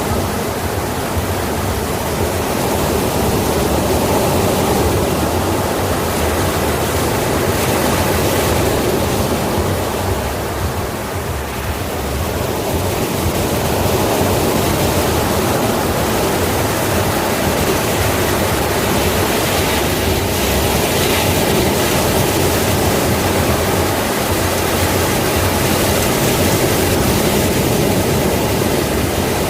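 Sea surf: waves breaking and washing in a continuous rush, easing slightly about ten seconds in.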